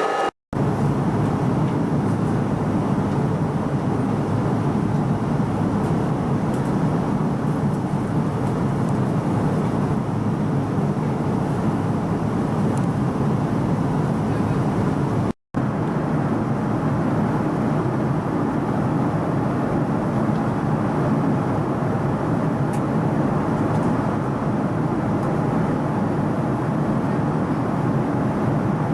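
Steady engine and airflow roar heard from inside the cabin of a Boeing 787 Dreamliner, as during take-off and climb. It has two brief gaps, just after the start and halfway through.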